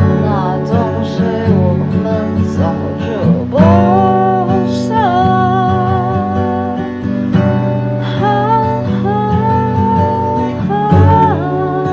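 Acoustic guitar strummed as accompaniment to a solo voice singing a melody of long held notes that slide into pitch.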